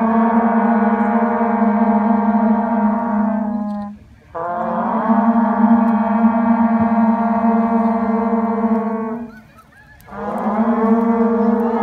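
Horagai (conch shell trumpet) blown in long held blasts, each opening with a short upward swoop in pitch: two blasts of about five seconds each with brief breaks between, and a third starting near the end.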